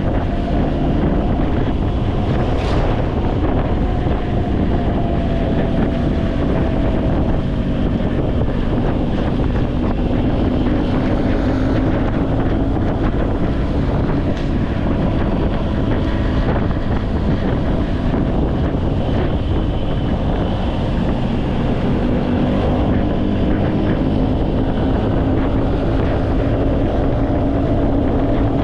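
An engine running steadily at a fairly even speed, its pitch drifting slightly up and down, with wind buffeting the microphone.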